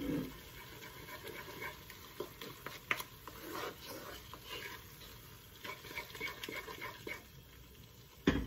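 Wooden spatula stirring and scraping a thick onion, tomato and spice masala around a cast iron wok, in short irregular strokes, with a sharp knock near the end.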